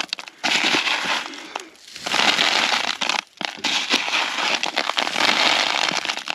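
Breath blown in three long puffs over a plastic tub of hand-threshed wheat, winnowing the chaff from the grain, with a crackly rustle of husks and kernels.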